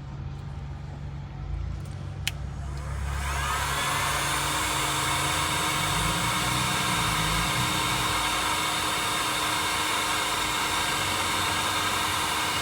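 Heat gun switched on about three seconds in: its fan spins up with a rising whine, then it blows a steady rush of hot air until it is switched off at the end. It is heating the phone's part to about 120 degrees before it is pried off.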